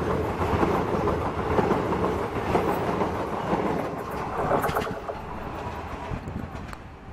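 Passenger express coaches running past on the track, their wheels on the rails giving a steady rumble with a few sharp clicks about four to five seconds in. The sound fades as the end of the train moves away.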